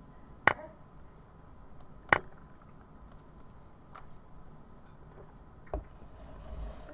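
Two sharp clacks about a second and a half apart, the online chess board's move sound effect as a knight captures and a pawn recaptures, followed by two fainter clicks later on.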